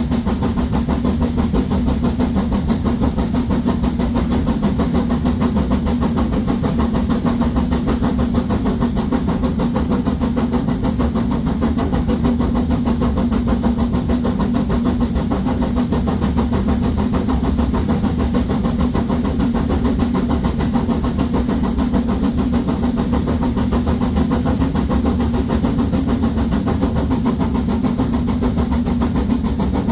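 Harz narrow-gauge steam locomotive 99 7240-7, a 2-10-2 tank engine, working hard up a 1:25 grade with seven fully loaded coaches: a steady, rapid run of loud exhaust beats.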